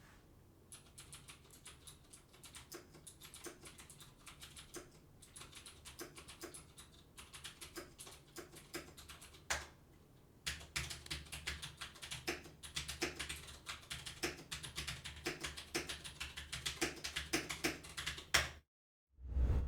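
Typing on a Varmilo VA87M mechanical keyboard with clicky Cherry MX Blue switches, heard from about three metres away: light typing at first, then, after a short pause about halfway, harder and louder typing. One loud thump near the end.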